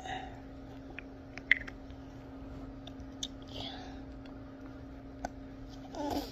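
Wet mouth clicks and smacks from a child licking and sucking a push pop candy, a handful of sharp clicks scattered through, the loudest about a second and a half in, over a faint steady hum. A brief voice sound near the end.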